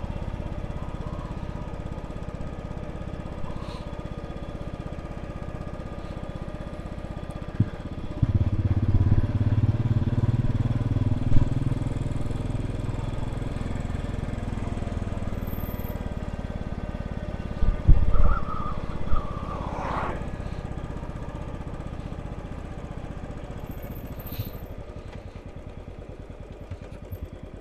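Royal Enfield Classic 500's single-cylinder engine running under way, with heavy wind buffeting the microphone. It grows louder about eight seconds in, a few knocks come a little past the middle, and it fades gradually toward the end.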